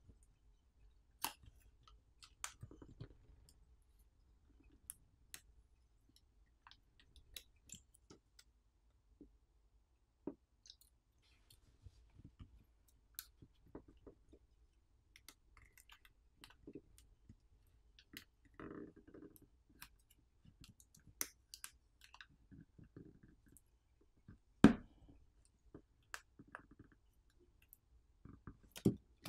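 Scattered light clicks, taps and scrapes of pry tools working at a smartphone battery held down by adhesive softened with isopropyl alcohol, with one sharper knock near the end.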